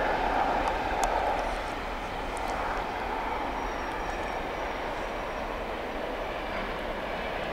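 Distant steam-hauled passenger train going by, behind LMS Princess Royal class Pacific 6201 Princess Elizabeth: a steady rolling noise of locomotive and coaches that eases a little after about two seconds.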